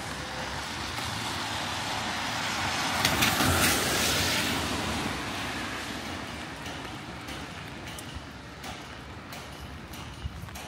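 A road vehicle passing close by in street traffic: its engine and tyre noise builds, peaks about three to four seconds in, then fades away.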